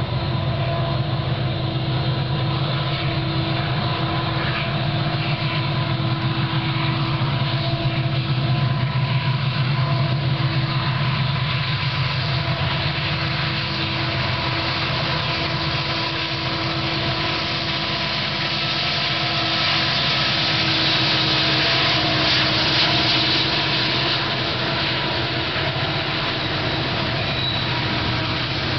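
Union Pacific double-stack container freight train rolling past: a steady rumble of the wheels and cars, with steady high metallic squeal from the wheels as it runs on a curve under braking. It swells a little twice along the way.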